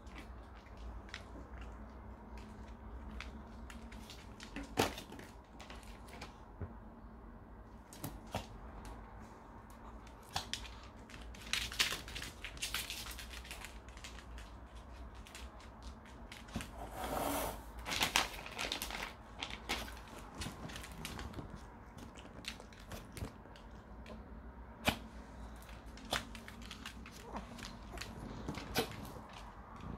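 Small dogs moving about on a laminate wood floor: irregular sharp clicks and taps, with a louder rustling scuffle about two-thirds of the way through.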